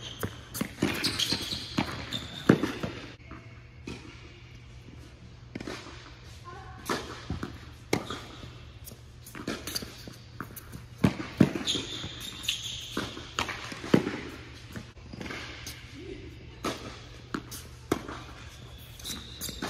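Tennis rally on an indoor hard court: sharp racquet strikes and ball bounces, echoing in a large hall, with brief high squeaks from shoes on the court surface.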